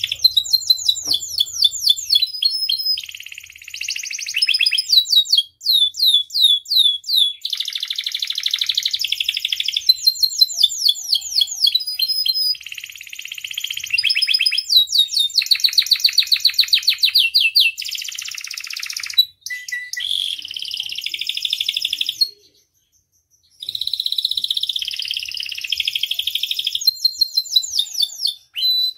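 A domestic canary singing a long, continuous song of fast repeated trills and buzzing rolls, with a short break about three-quarters of the way through.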